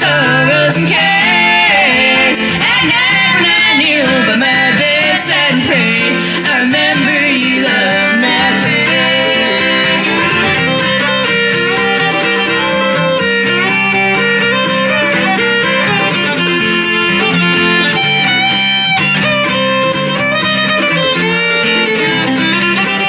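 Live acoustic bluegrass band playing an instrumental passage, a fiddle carrying the melody over strummed guitar and mandolin.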